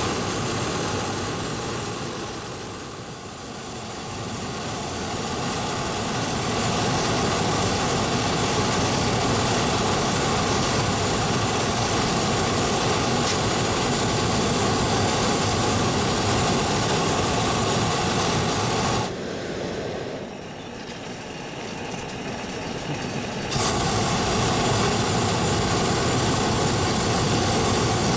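Hot air balloon's propane burner firing, a steady roar that sinks a little early on, drops away suddenly about 19 seconds in and comes back abruptly some four seconds later.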